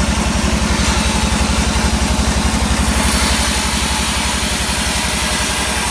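Sawmill engine running steadily with a fast, even pulse; a brighter hiss joins about three seconds in.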